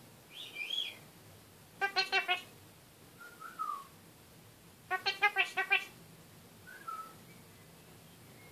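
A kakariki (red-crowned parakeet) calling: two bursts of rapid chattering notes, a short one about two seconds in and a longer one about five seconds in. Single soft whistled notes fall in between.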